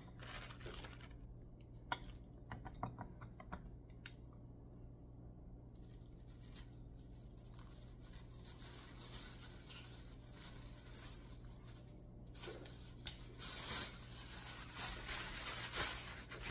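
A few light clicks and taps in the first seconds as a metal hand-held lemon squeezer is handled. Then, from about twelve seconds in, a thin plastic shopping bag rustles and crinkles as raw chicken strips are mixed with lemon juice inside it.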